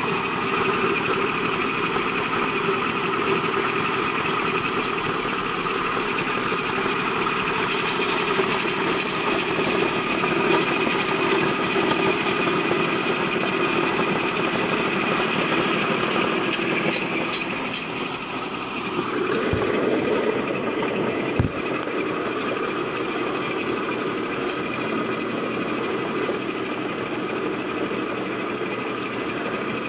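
Electric grinding mill running steadily, grinding dried ginger slices into powder, with a hum and a couple of sharp knocks about twenty seconds in.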